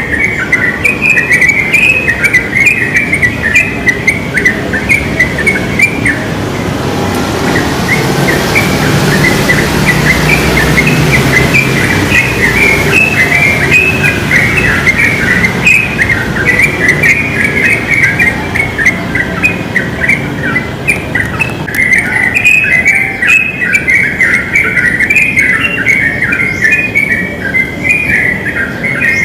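Sooty-headed bulbuls (trucukan) singing busily: a steady stream of short chirping notes, one after another. In the middle a low rumble swells and fades.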